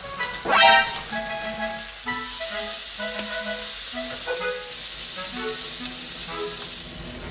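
Food sizzling in a small frying pan, a hiss that swells about two seconds in, under background music. About half a second in there is a short, loud sound with a rising pitch.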